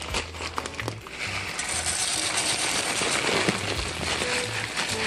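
Frying sizzle from a very hot pan of oil: a few clicks, then a steady sizzle sets in about a second in. Background music with a bass line plays along.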